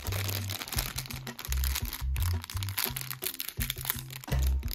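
Foil blind-bag packet of Cars Mini Racers crinkling as it is squeezed and handled, over background music with a repeating bass pattern.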